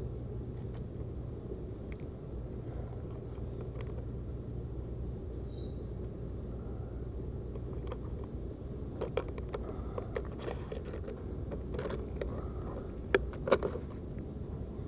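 Freight train's cars rolling slowly through the yard: a steady low rumble, with metallic clanks and clicks from the cars starting about nine seconds in, the loudest two close together near the end.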